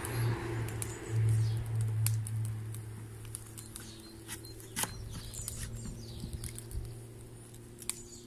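A knife working the core out of an apple on a wooden cutting board: scattered light clicks and taps. Under them runs a low steady hum, loudest a second or two in, with faint high chirps.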